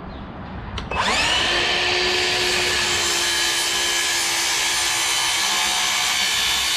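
Cordless circular saw spinning up about a second in, then running with a steady high whine as it crosscuts a wooden board.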